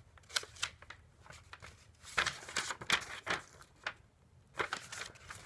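Packaging being handled as a box is unpacked: irregular crinkling and rustling with scattered short sharp crackles.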